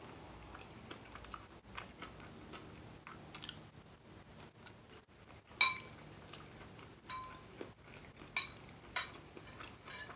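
Close-mic chewing of a noodle dish with chicken, with small soft mouth clicks. An eating utensil clinks sharply against the dish three times in the second half, each clink ringing briefly.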